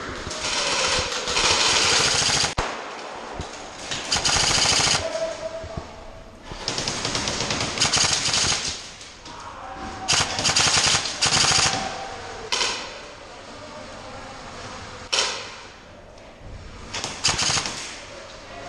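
Airsoft guns firing in rapid full-auto bursts: several bursts of one to two seconds with short gaps, then a few shorter bursts toward the end.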